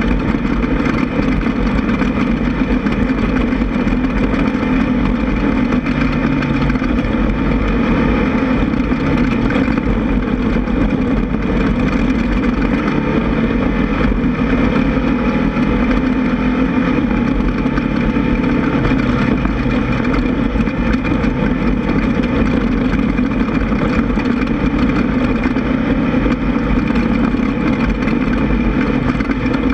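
Air-cooled 1600 cc VW flat-four engine of a Class 1600 off-road race buggy running loud and steady, with little change in pitch.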